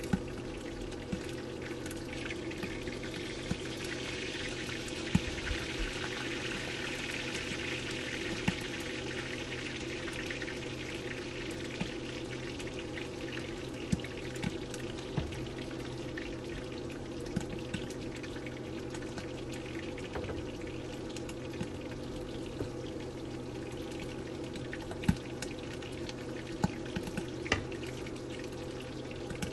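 Pork belly frying in a hot kawali, sizzling steadily in its own rendered fat, with scattered sharp pops of spattering oil.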